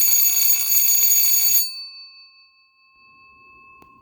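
Edwards 4-inch Adaptabel model 340 electric school bell ringing loudly and steadily, its striker rapidly hammering the gong. About one and a half seconds in the power is cut and the ringing stops, leaving the gong's tone ringing on and fading; the bell is working well.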